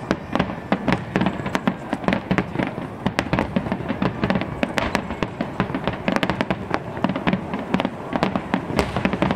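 Aerial firework shells bursting in quick succession: a dense, loud run of bangs and crackles, several a second.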